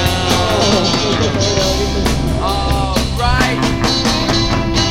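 Rock song playing, with a steady drum beat, bass and guitar, and a singing voice.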